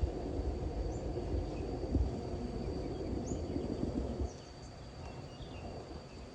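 Road traffic rumble from a nearby road that drops away about four seconds in, over a steady high insect drone and a few faint bird chirps.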